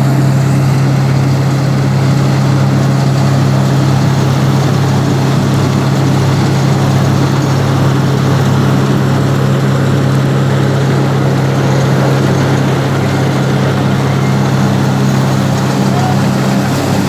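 Loud, steady machine running: a constant low engine or motor hum with a noisy whirr over it, unchanging throughout.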